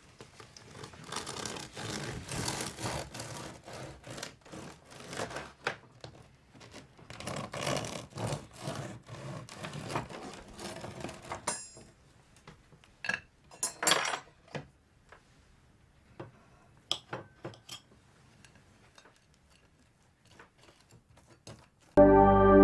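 Irregular rubbing and scraping noises, dense for about eleven seconds, then thinning to scattered clicks and knocks. Music starts suddenly near the end.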